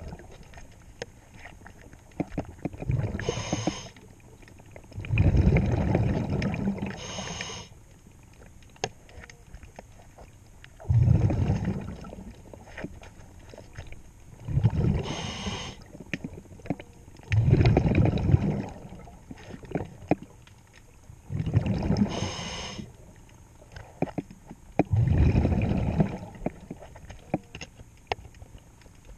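Scuba diver breathing through a regulator underwater: a short hiss on each inhale, then a longer low rush of exhaled bubbles, repeating about every four seconds. Faint clicks and taps sound between breaths.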